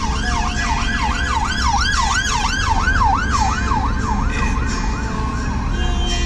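Emergency vehicle siren on the yelp setting, its pitch sweeping up and down about three times a second and fading near the end, over the low hum of idling traffic.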